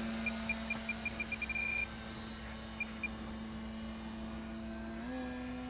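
Brushless electric motor and propeller of an ESR Super Decathlon RC plane humming steadily in flight, the pitch stepping up slightly about five seconds in as throttle is added. Short high electronic beeps quicken into a run during the first two seconds, with two more a little later.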